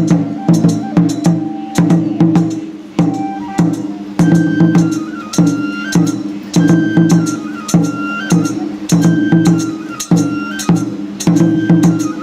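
Japanese shrine dance music: drums beaten in a quick, steady pattern. From about four seconds in, a bamboo flute plays a high, ornamented melody over them.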